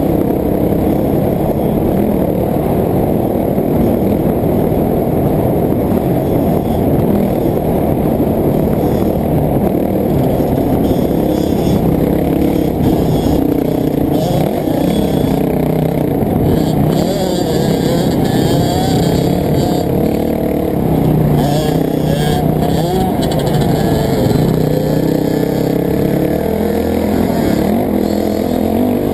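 Off-road dirt bike engine running continuously, its revs rising and falling with the throttle. Scraping and clattering come and go through the middle part.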